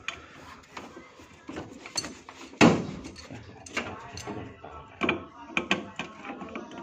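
Scattered metallic clicks and knocks of hands and an adjustable wrench working the hub nut of an air conditioner's blower wheel, with one louder thump about two and a half seconds in.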